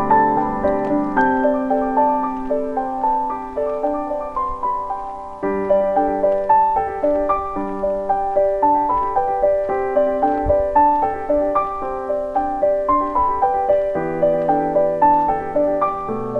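Background music: a slow piano melody over sustained chords, the notes struck at an even, gentle pace.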